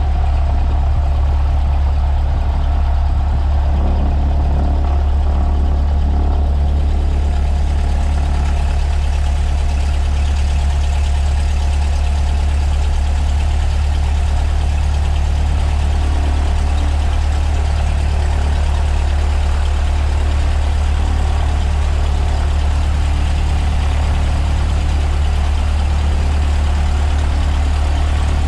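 Cessna 152's four-cylinder Lycoming engine and propeller droning steadily. A rushing hiss grows stronger about six seconds in.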